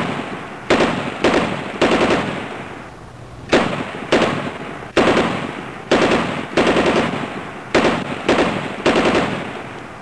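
A series of loud, sharp bangs, often about half a second apart with a few short pauses, each one ringing out and dying away over about a second.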